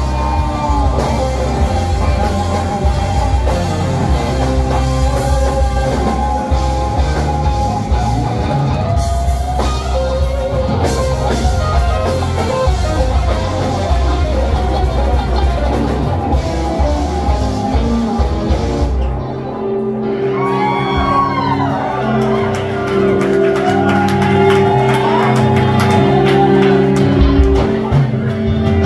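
A live rock band playing loudly through the club's PA, heard from within the audience. About two-thirds of the way through, the drums and bass drop away, leaving pitched lines that bend up and down over a held note, before the low end partly comes back.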